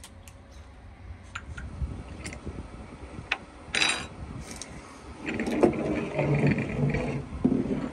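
Tea running from a samovar's tap into a cut-glass tea glass on a saucer, with a few light clinks of glass and metal in the first half and a louder stretch of the running in the second half.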